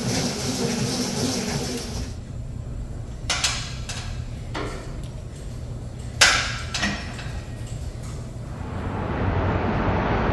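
A treadmill running with a steady motor hum at first. Then a quieter gym room with two sharp metallic clanks from weight machines, about three and six seconds in. Near the end, city street noise rises.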